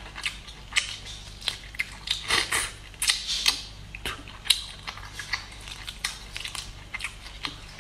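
Close-miked cooked shrimp being peeled by hand, shells cracking and tearing off, along with biting and chewing of the shrimp meat. It is a run of short, irregular crackles and clicks.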